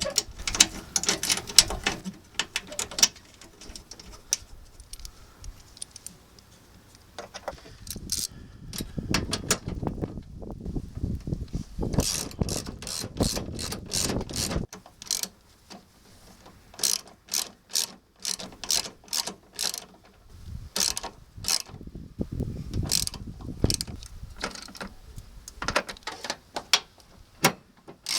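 Hand ratchet wrench clicking in several quick runs of strokes with short pauses between them, as bolts are run down. There are some knocks of parts being handled at the start.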